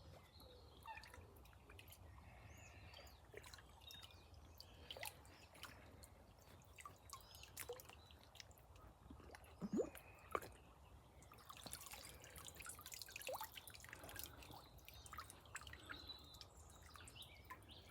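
Faint dripping and small splashes of water as a landed carp is returned to the lake, with a couple of louder plops about ten seconds in.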